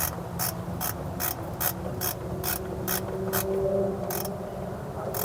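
Hand ratchet turning a bolt, its pawl clicking in an even run of about two clicks a second.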